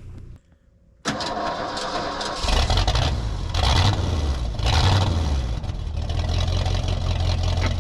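An engine starting about a second in, then running with a heavy low rumble that swells a few times.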